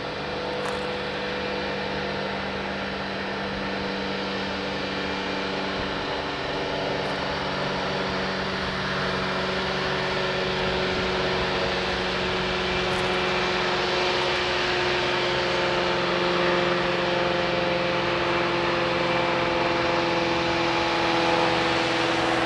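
Steady engine drone with several held tones over a noisy hum, slowly growing louder.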